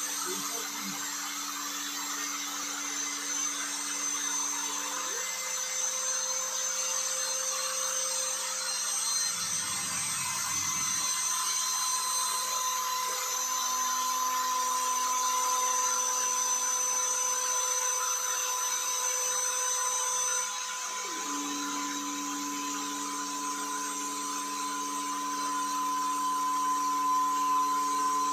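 CNC router's compact trim-router spindle running at high speed and cutting foam board, a steady high whine. Lower humming tones shift to a new pitch every several seconds as the machine changes direction along the cut.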